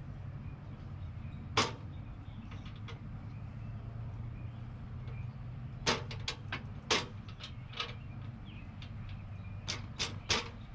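Sharp clicks and knocks of hard parts being handled and fitted while a new pressure washer is assembled: one early click, a quick cluster of about five around the middle, and three more near the end, over a steady low hum.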